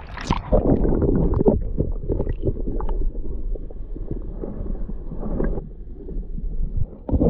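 A camera plunged under sea water. There is a splash as it goes in, then a muffled underwater rumble with scattered small clicks and crackles, and a sharp splash just before the end as it breaks the surface.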